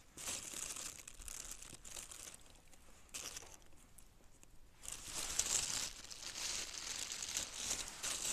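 Irregular crinkling and rustling, like dry material being handled or crumpled, loudest from about five to six seconds in.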